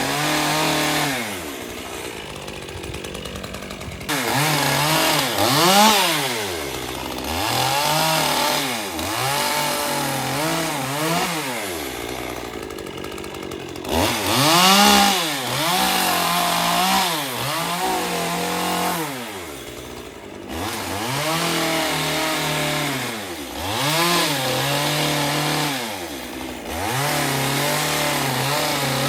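Chainsaw pruning a palm, revved up and let back again and again, its engine pitch rising and falling every second or two, with short spells at a lower, steadier speed.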